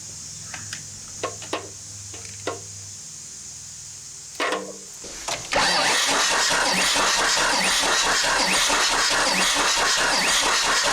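Starter cranking a skid steer's four-cylinder diesel without it firing, for a wet compression test with oil in the cylinder. It starts suddenly about five and a half seconds in and keeps an even, rapid rhythm. The cylinder's compression comes up only a little and stays low.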